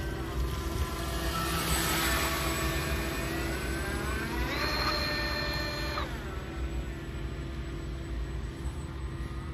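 Twin brushless outrunner motors driving the water jets of an RC boat, whining as they run. Their pitch shifts with the throttle, climbs about four and a half seconds in, holds high for about a second and a half, then drops back.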